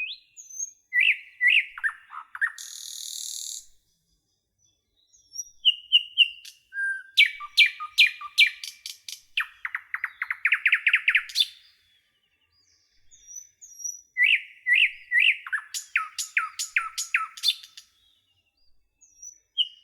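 Songbird singing in phrases of rapid high chirps, trills and quick down-slurred notes, with silent pauses of one to two seconds between phrases. A short hiss sounds about three seconds in.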